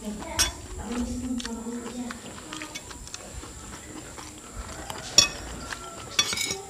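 Metal spoon and fork scraping and clinking against a ceramic plate while eating, with a sharp clink about five seconds in and a quick cluster of clinks just after six seconds.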